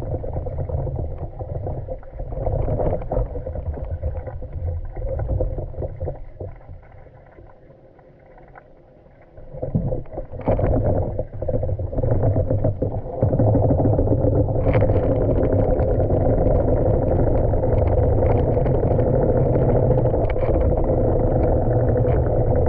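Muffled underwater rumble and gurgle of a manual pool vacuum head and suction hose being pushed across a tiled pool floor, heard from underwater. It fades low for a few seconds about a third of the way in, then comes back with a couple of knocks and runs louder and steady.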